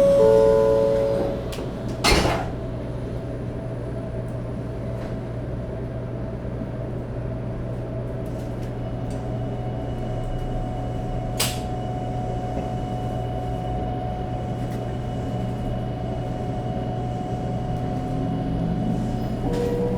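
Interior sound of a Shinkansen 500 series car as it stands ready to depart. A steady chime of tones stops about a second in and a sharp clunk comes about two seconds in. A steady equipment hum with a level whine follows. Near the end the Toshiba GTO-VVVF traction inverter starts its rising whine as the train begins to pull away.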